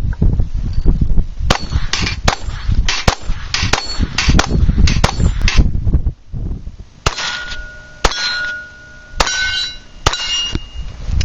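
A .22 rimfire pistol fired in a quick string of sharp cracks, about two a second. Slower single shots follow, about a second apart, several of them followed by a clear metallic ringing.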